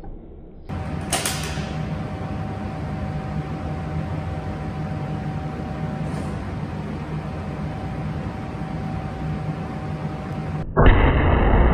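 Steady background hum and hiss with a faint steady tone and a single click about a second in. Near the end a sudden, much louder blast sets in: the .375 CheyTac rifle firing through its muzzle brake.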